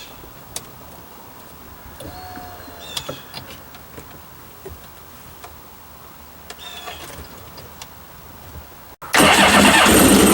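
Kawasaki STX-12F jet ski engine starting in a sudden loud burst about nine seconds in, lasting about a second and a half before it cuts off. It fires up on a fuel pump wired straight to a separate battery, bypassing the pump's own supply wire. Before that, low background with a few short bird calls.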